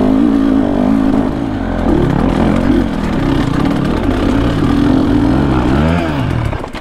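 Dirt bike engine running hard on a trail, its note rising and falling with the throttle. It drops away sharply at the very end.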